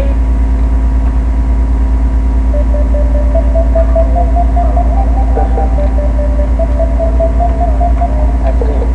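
Steady, loud, low electrical hum with a buzz over it, and a faint wavering higher tone that comes and goes.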